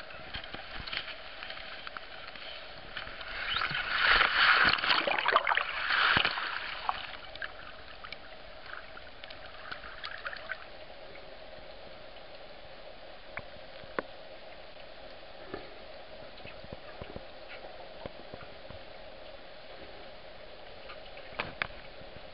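Water splashing and sloshing loudly and irregularly for a few seconds soon after the start. Then a quieter, muffled underwater hiss follows, with scattered faint clicks.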